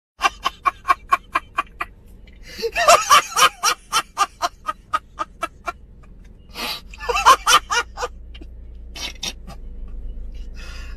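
A man laughing hard in fast ha-ha pulses with gasps, in three long fits that fade out near the end, over a faint low hum.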